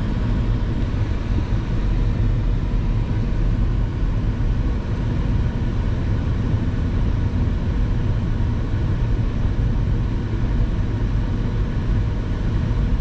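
Steady low rumble of a moving car heard from inside the cabin: the engine of a non-turbo Ford four-cylinder working uphill, mixed with tyre and road noise.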